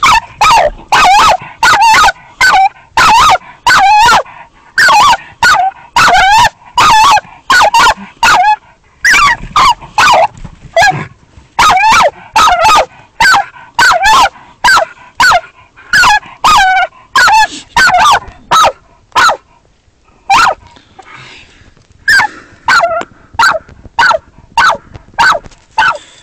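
Hunting dog barking at a badger in its den, short loud barks about one and a half a second. The barking pauses for a couple of seconds about twenty seconds in, then resumes.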